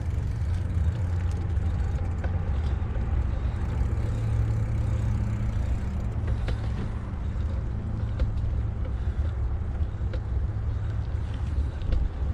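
Steady wind rumble on the microphone while riding a bicycle, with a few faint ticks.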